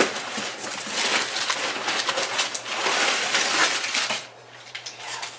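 Crumpled brown packing paper crinkling and rustling as it is pulled out of a cardboard box, stopping about four seconds in.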